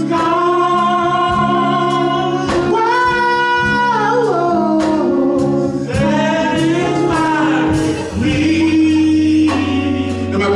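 A preacher singing a gospel line in long, drawn-out notes that slide between pitches, over steady held accompaniment chords.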